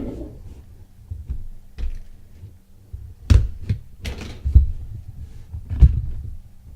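A cardboard mystery box being handled and opened: rustling, with four sharp knocks and thumps in the second half.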